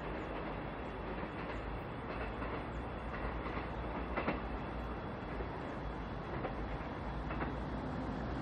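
Korail electric commuter train running along the track, a steady rumble of wheels on rails with two sharp clicks in the second half.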